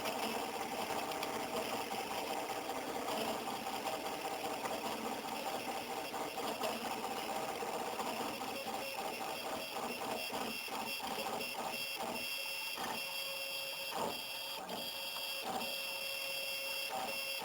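Stepper motors of a small CNC machine whining steadily as they drive a contact probe through a 3D scan, with a run of short clicks through the second half.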